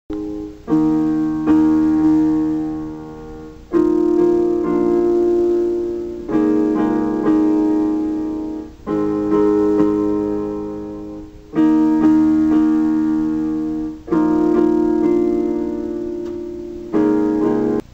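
Slow piano music: full chords struck one after another, each left to ring and fade before the next.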